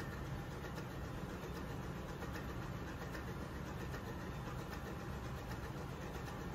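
Steady low drone of running machinery, the background noise of a ship's engine-room workshop.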